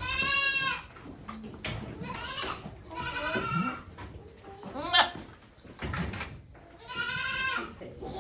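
Goats bleating: about five separate wavering calls, the first and loudest right at the start.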